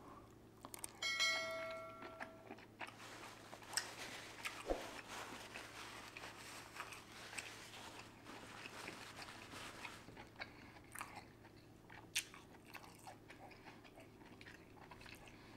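Close-up sounds of a person eating boiled seafood: quiet chewing and biting with crunchy, wet noise and scattered clicks. A short ringing tone sounds about a second in.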